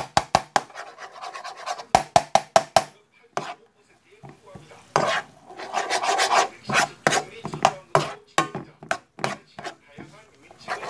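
Spatula scraping and tapping against a nonstick frying pan while stir-frying diced bread and vegetables, in quick runs of taps and scrapes with a pause of about a second around the middle.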